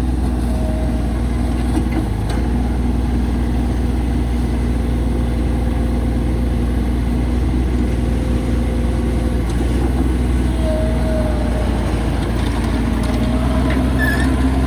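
2019 Bobcat MT85 walk-behind mini track loader's diesel engine running steadily at idle.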